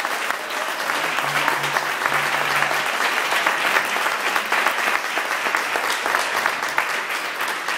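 Audience applauding: a dense, steady patter of many hands clapping at the end of a fiddle tune.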